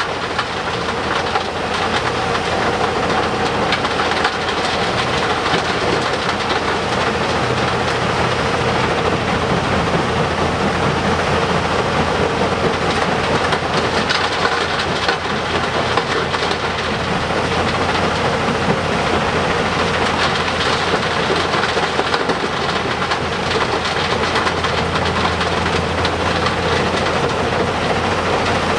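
Volvo EC750E L excavator and A60H articulated hauler at work: heavy diesel engines running steadily under continuous rattling and rumbling.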